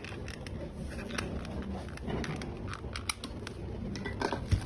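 Light clicks and rubbing of plastic and carbon-fibre steering-wheel trim pieces being handled and pressed together, with a few sharper clicks a little after four seconds.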